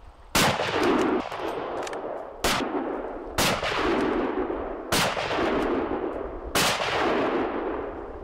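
Five rifle shots fired at an uneven pace over about six seconds, each followed by a long echo that fades before the next shot.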